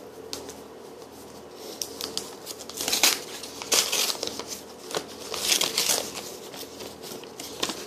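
Paper rustling and crinkling in several short bursts as a mailed envelope is opened and its contents handled.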